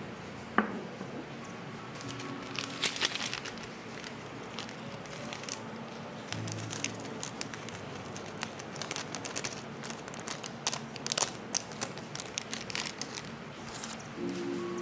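A plastic seasoning sachet from a pack of Samyang Buldak noodles crinkling as it is handled and torn open, with its dried flakes shaken out into a ceramic bowl. The crackles come in quick irregular bursts from about two seconds in, over background music.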